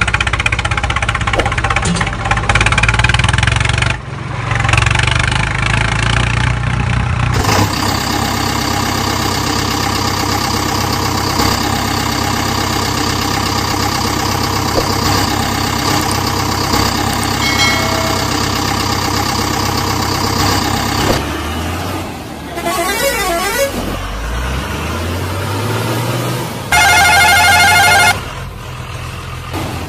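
A run of vehicle engine sounds, one after another, with an engine rising in pitch as it revs, then a loud horn blast of about a second near the end.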